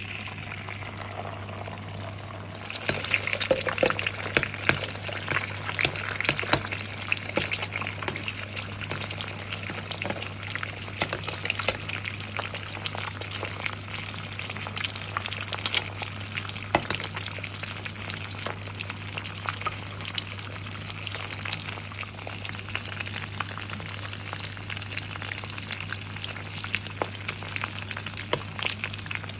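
Fried eggs sizzling in a pan: a steady frying hiss full of sharp crackles and pops. It jumps up about two and a half seconds in, is loudest for a few seconds, then settles to an even sizzle.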